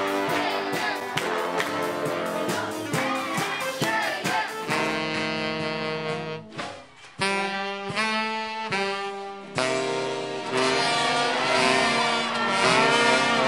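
Big band jazz: saxophones and brass over a busy drum beat. About five seconds in it cuts to long held horn chords, dips briefly, then a fuller horn passage picks up again.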